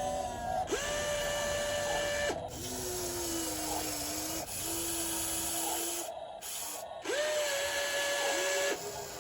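Small electric gear motors of a toy RC excavator whining as its functions are worked one after another. A higher whine rises in about a second in and cuts off, a lower, steadier whine follows, and the higher whine comes back near the end.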